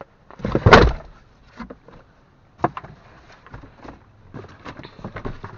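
Handling noise from the removed, worn-out struts and shock absorbers being moved about: a loud thump and rustle about half a second in, then scattered knocks and clicks.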